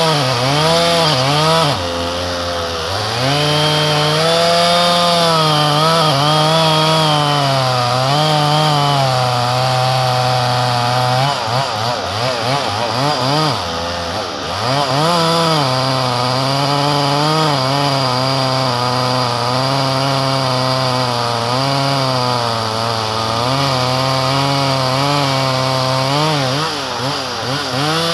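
Husqvarna chainsaw cutting through a large tualang log, its two-stroke engine running at full throttle with the pitch sagging and recovering as the chain bogs in the wood. The revs drop sharply a couple of seconds in and again about halfway through, then pick up again.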